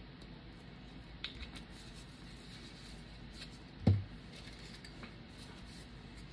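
Faint small clicks and taps from a small jar of metallic powder being handled over a cup of resin, with one dull thump on the worktable just under four seconds in.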